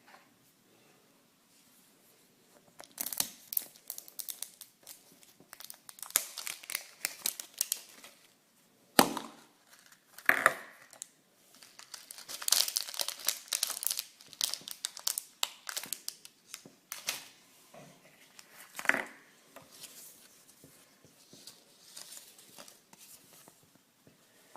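Packaging being crinkled and torn open by hand, in irregular bursts of crackling, with a few sharper knocks or clacks along the way.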